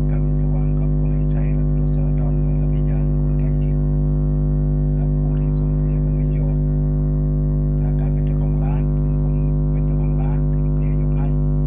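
Loud, steady electrical mains hum with a stack of overtones that never changes, with faint voices underneath it.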